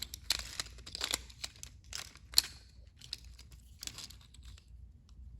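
Hard plastic toy parts being handled: a run of sharp clicks and crackling rustles, thinning out near the end, as a spare Thomas shell is worked with.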